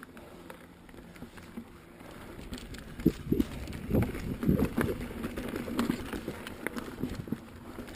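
Carbon Pivot Switchblade mountain bike being ridden on a trail: tyre rumble, then from about three seconds in a quick run of clattering knocks and rattles from the bike.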